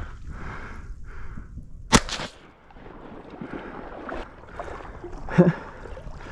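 A single sharp shotgun report about two seconds in, ringing out briefly, over water lapping and sloshing around the hunter.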